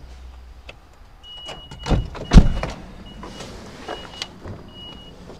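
A Toyota HiAce camper van's warning beeper sounding repeatedly, a high steady beep switching on and off in a regular pattern, with two heavy thumps around two seconds in as the loudest sounds.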